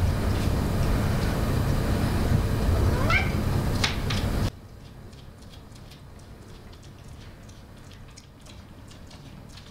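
A cat meows once with a rising call about three seconds in, over a steady low rumble. The rumble cuts off suddenly about halfway through, leaving a quieter background with faint ticks.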